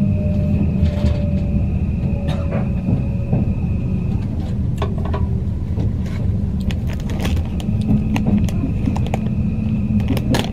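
Odakyu Romancecar electric train running on the rails, heard from inside the carriage: a steady low rumble with a faint whine that falls slowly in pitch over the first few seconds. From about halfway through, a run of sharp clicks and knocks comes in as the wheels cross rail joints and points.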